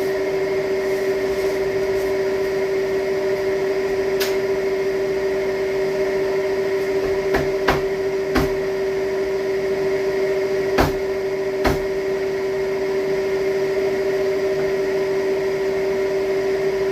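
A steady, constant-pitched electrical or mechanical hum, with about six short clicks or knocks scattered through the middle.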